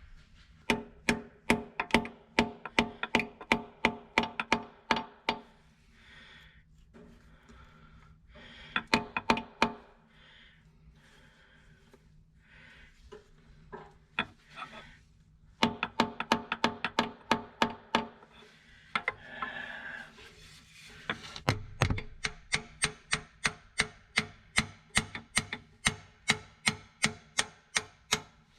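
Small hammer tapping on steel tractor transmission parts, a run of sharp ringing metallic taps about three a second, stopping and starting several times, as a part is driven into place.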